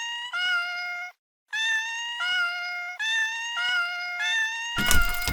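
Japanese railway level-crossing warning alarm ringing, alternating between a low and a high electronic tone at about one and a half notes a second, each note sliding slightly upward. Near the end a sudden loud thump with a rush of noise comes in under it.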